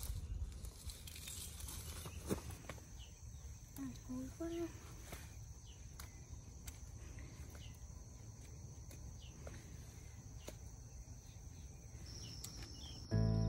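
Quiet countryside ambience: a steady high insect trill, with scattered rustles and clicks of footsteps and handling in the undergrowth. A brief low voice sounds about four seconds in, and music starts just before the end.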